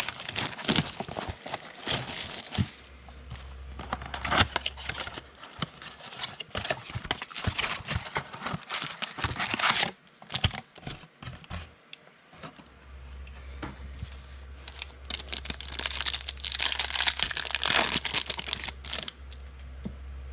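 Trading-card pack wrapper being torn open and crinkled by hand, with cards handled and shuffled. The crinkling comes in three bouts: at the start, in the middle and again near the end.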